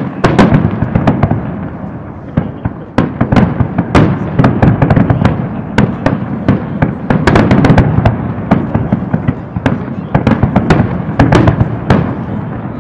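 Aerial fireworks display: a sudden loud bang right at the start, then a dense, unbroken barrage of shell bursts, several bangs a second over continuous crackling.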